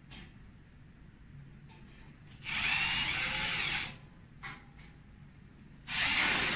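Cordless drill running in two bursts against a solar panel's metal mounting frame: one about a second and a half long midway through, then a shorter one near the end.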